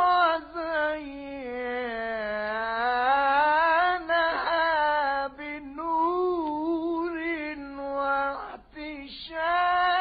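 Unaccompanied solo voice chanting an Arabic devotional melody in the tawshih style, with long held notes that slide and waver in ornaments, broken by a few brief pauses.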